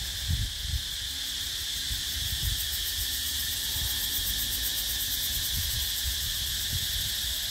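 A steady, shrill insect chorus with a fast pulsing trill, with a few low thumps in the first second.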